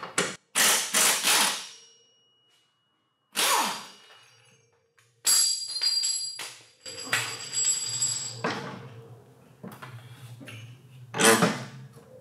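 Cordless impact tool running in short bursts on the rear differential's mounting bolts, with a high whine in the longest burst. Metal clunks follow as the heavy differential is worked loose, with a sharp knock near the end.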